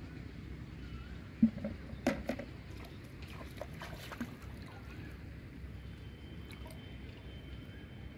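Splashing and sloshing as someone steps into shallow, muddy pond water, with a few sharp splashes or knocks about one and a half and two seconds in, then quieter sloshing.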